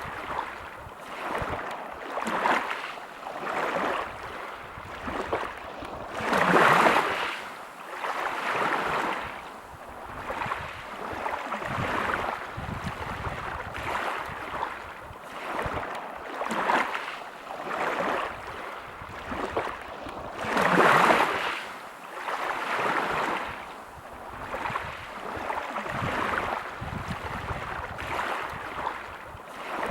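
Sea waves breaking on a pebble beach, the wash surging and falling back every couple of seconds. Two bigger waves come in, about seven seconds in and again about twenty-one seconds in.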